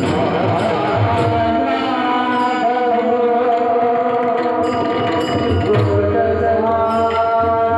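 Music: a held, slowly shifting melody with drum strokes underneath.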